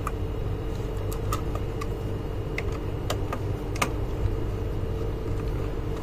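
A handful of light, sharp clicks and taps as a small screwdriver works a sensor wire into the plastic screw terminals of a digital thermostat, over a steady low hum.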